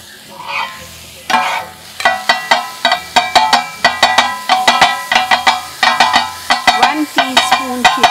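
Two steel spatulas chopping on a hot iron tawa in the kata-kat style: rapid, rhythmic metal-on-metal clanging that rings. It starts a little over a second in, with food sizzling underneath.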